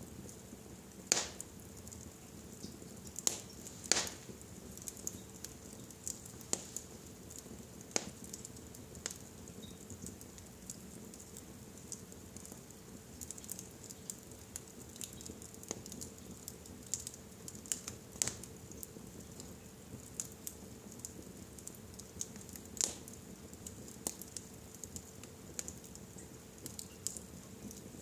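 Wood fire burning in a fireplace: a steady low hiss with irregular sharp crackles and pops, a few louder snaps standing out.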